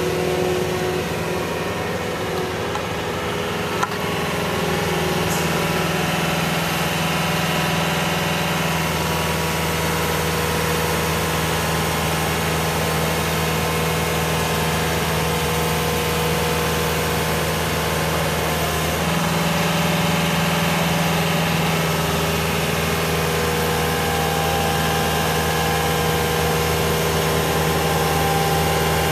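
Skid steer loader's engine running steadily, with slight shifts in engine speed about a third and two thirds of the way through.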